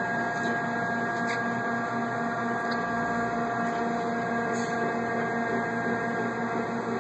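Heald Model 271 internal grinder running with a steady hum and a few held whining tones as it starts cycling under its hydraulics.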